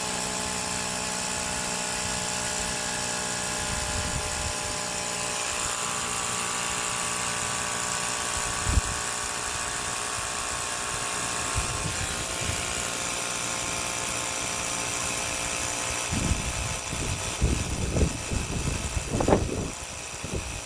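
Small electric air compressor running steadily, inflating a dirt bike tire. A few knocks and thumps come near the end.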